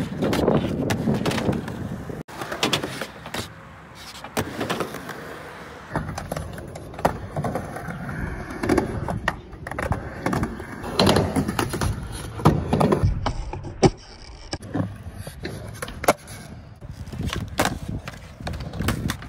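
Skateboard wheels rolling on skatepark ramps and concrete, with repeated sharp clacks and knocks of the board hitting the ground.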